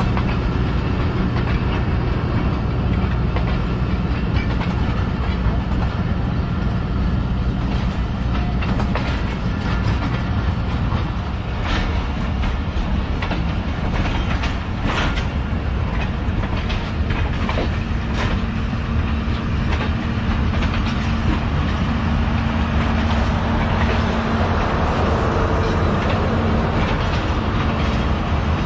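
Departing passenger train rolling past, its wheels clacking over the rail joints over a steady low rumble, with a few sharp clicks in the middle.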